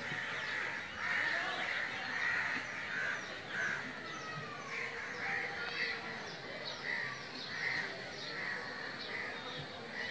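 A chorus of birds calling: many short, overlapping chirps and squawks, repeating about every half second.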